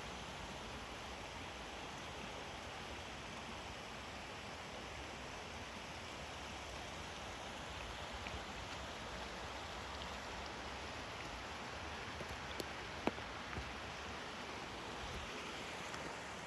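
Steady rushing of a 35-foot waterfall and its creek. A couple of light clicks come about two-thirds of the way through.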